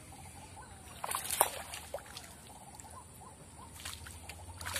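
Water splashing as a hooked snakehead thrashes at the surface while being fought and reeled in on a soft frog lure. The biggest splash comes about a second in, with smaller ones later and another near the end.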